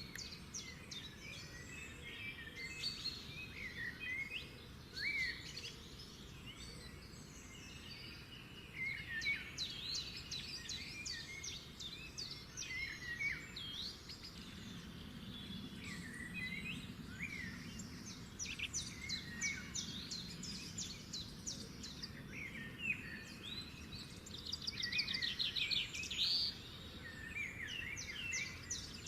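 Many small birds chirping and calling over one another, short sweeping notes throughout, with quick rattling trills coming in near the end, over a steady low background hum.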